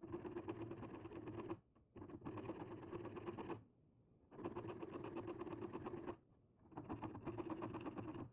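Diamond file rasping back and forth across the teeth of a Japanese ryoba pull saw, sharpening them. It comes as four runs of quick strokes, each about one and a half seconds long, with short pauses between them.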